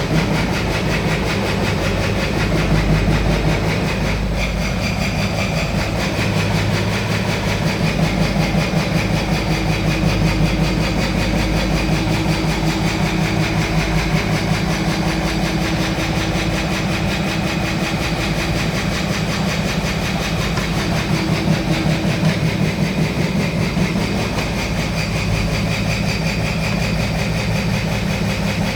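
Small excavator's diesel engine running steadily with a rapid pulsing note. A faint higher steady tone sits over it through the middle stretch.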